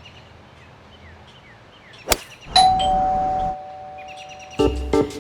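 Two-tone doorbell chime, a higher ding followed by a lower dong that rings out for about a second, coming about two and a half seconds in just after a sharp click. Faint bird chirps sound before it, and near the end a quick run of pitched hits begins.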